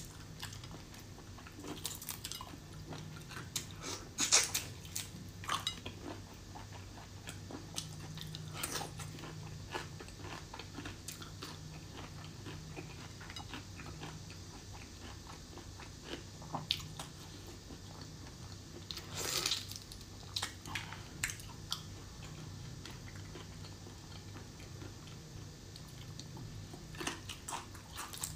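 Close-miked eating sounds of soy-marinated prawns: chewing and biting with scattered sharp clicks and crackles of shell being pulled apart, and two louder bursts, one a few seconds in and one about two-thirds through.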